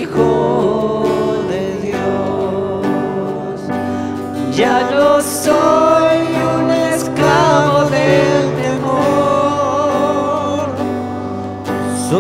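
A live worship band playing a slow Spanish-language worship song: a singer's voice over strummed acoustic guitar and keyboard.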